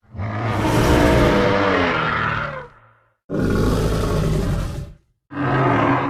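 Designed dinosaur roar sound effects for a Pachyrhinosaurus: three loud roars cut apart by dead silence, the first about three seconds long and sliding down in pitch at its end, the next two shorter.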